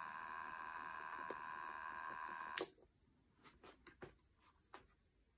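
Electric Eel Wheel Nano 2.0 e-spinner running fast with a steady motor whine, the flyer spinning. It is switched off with a sharp click about two and a half seconds in and stops at once, followed by a few faint handling clicks.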